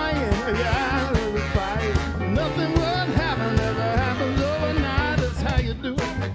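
Live band playing an upbeat rock-and-roll number: drums and electric bass keep a steady beat under electric guitar and saxophone, and a bending lead melody rides over the top.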